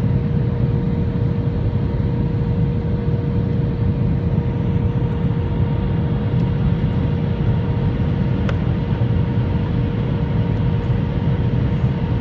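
Airliner cabin noise in flight: a steady low rumble of engines and airflow, with a constant hum-like tone over it.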